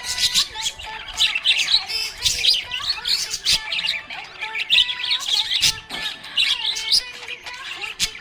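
Small pet parrots chirping and chattering without pause: many quick, high chirps overlapping one another.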